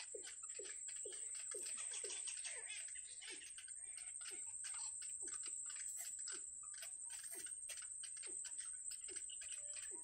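Bittern chicks begging at the nest while being fed: a continuous run of short calls, each with a falling note, about two a second, over rapid raspy clicking.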